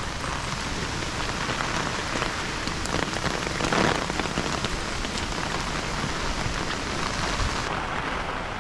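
Heavy typhoon rain falling steadily, a dense hiss of drops with a brief louder swell about four seconds in.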